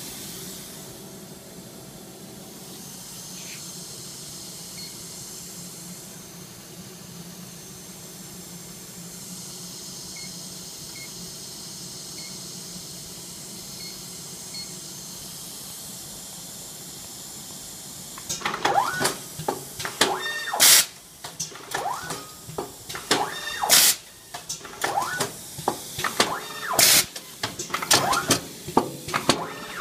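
A 2006 Sharp Packaging MAX IP automatic bagger with built-in printer. First there is a steady machine hum with a few faint beeps from its touchscreen. About two-thirds of the way in, the machine starts cycling with rapid, irregular clicks and clunks as it feeds and prints the bag film.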